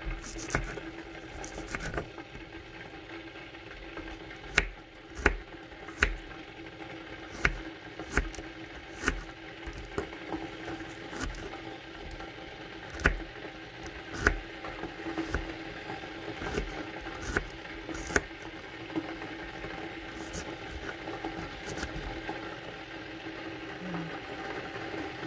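Kitchen knife chopping garlic cloves on a wooden cutting board: irregular knocks of the blade striking the board, roughly one a second, some much louder than others. A steady low hum runs underneath.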